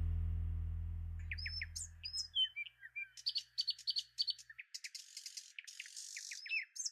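Music with low sustained tones fades out over the first two seconds or so. From about a second in, birds chirp and twitter with many short, quick, high notes.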